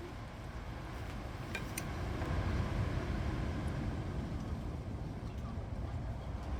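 Strong wind gusting, a rough low rumble that swells about two seconds in, with a couple of faint clicks.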